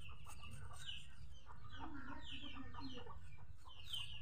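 Chickens clucking: a run of short, repeated calls over a steady low rumble.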